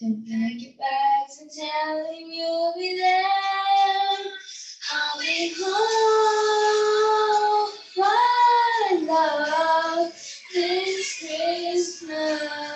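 A young woman singing solo into a handheld microphone, starting after a short pause, with long held notes and a phrase that bends up and down in pitch.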